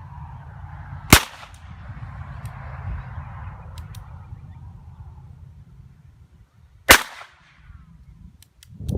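Two shots from a Heritage Rough Rider .22 LR single-action revolver, about six seconds apart, each a sharp crack.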